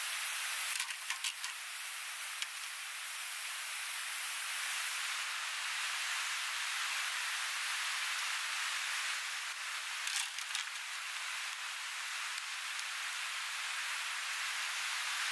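Steady rushing of river water, with a few short knocks of bamboo poles being handled and set down on rock, about a second in and again around ten seconds in.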